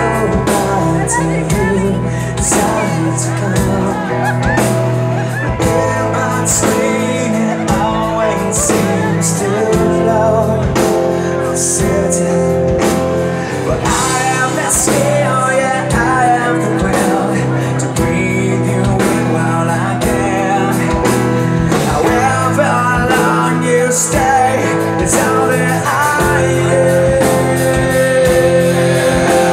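Rock band playing live: a man singing over electric guitar and drums, with cymbal crashes every few seconds.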